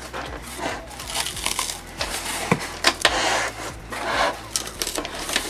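A cardboard box and its packing being handled: rustling and crinkling with scattered light knocks and clicks as the opened box is turned around.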